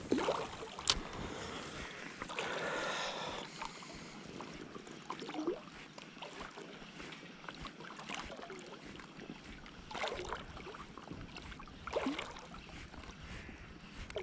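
Lake water lapping and splashing around a float tube, with several short splashy swishes and a sharp click about a second in.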